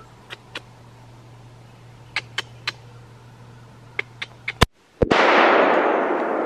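A few sharp scattered clicks, then about five seconds in a single loud deer-rifle shot whose report echoes and rolls away for several seconds.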